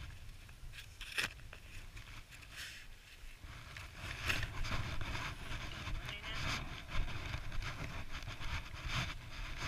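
A child's small plastic snow shovel scraping and crunching into a snowbank in short, irregular strokes, with a sharper knock about a second in. A low rumble joins in about three and a half seconds in.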